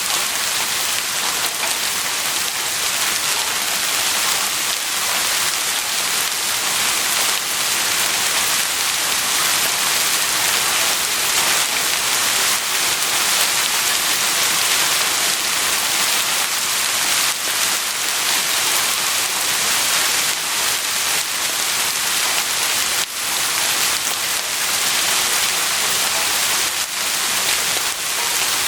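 Heavy rain falling steadily on a surface, a dense hiss with fine spattering ticks of drops.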